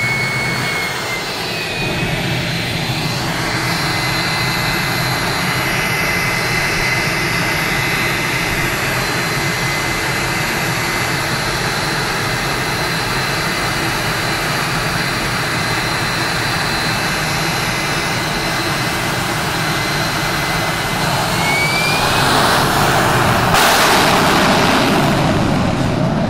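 Jet truck's turbine engine running with a steady high whine while it shoots flame from its exhaust stack. Near the end the whine climbs in pitch and a much louder rushing blast takes over as it goes to full power for its run down the strip.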